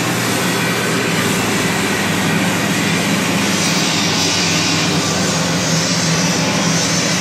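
CZ purlin roll-forming machine running, steel strip feeding through its forming rollers: a steady, loud mechanical drone with a low hum, and a brighter hiss coming in about halfway through.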